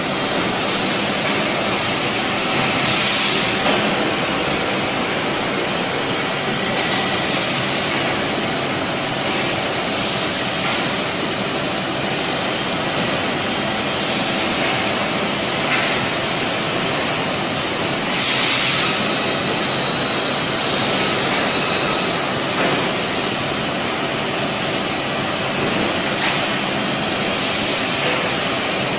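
Particle board production line machinery running with a steady industrial drone, broken by several brief hissing surges, the loudest about three seconds in and again about two-thirds of the way through.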